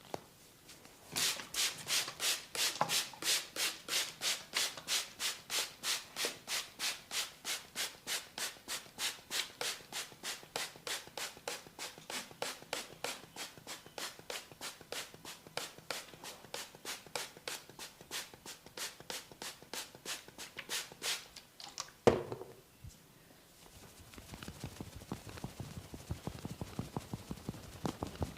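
A barber's hands rubbing and pulling through hair on a scalp in quick, even, hissing strokes, about three a second, during a head massage. About 22 seconds in there is a single loud crack, followed by faster, lighter tapping.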